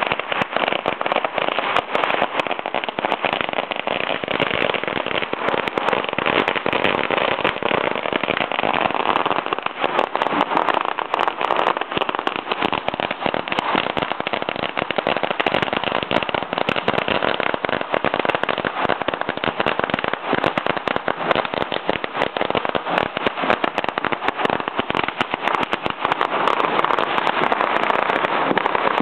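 Many firecrackers popping at once in a dense, continuous crackle of overlapping bangs that never lets up.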